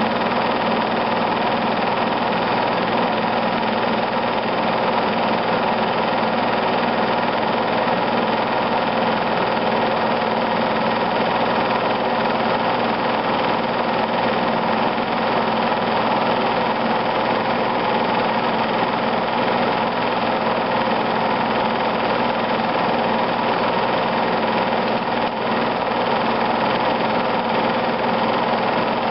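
Film projector running: a steady mechanical hum of its motor and fan, unchanged throughout and unaffected by the cuts in the picture.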